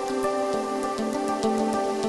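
Background music: soft sustained chords over a light ticking beat, about four ticks a second.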